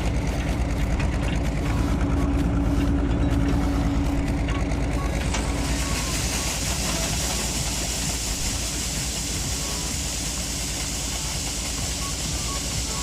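Heavy diesel farm machinery running steadily. About five seconds in, a steady high hiss joins the engine sound.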